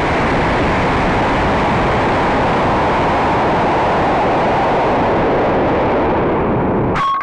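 Steady, loud rushing noise of a Wildman Jr. high-power rocket in flight, picked up by its onboard camera. Near the end the noise drops out briefly, and a short beep sounds.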